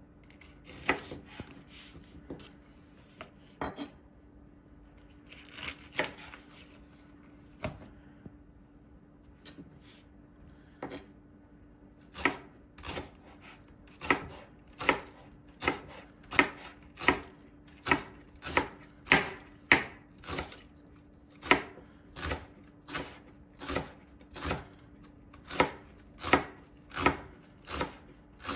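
Kitchen knife chopping on a cutting board. A few scattered knocks come first, then from about halfway through a steady run of evenly paced strokes, roughly three every two seconds.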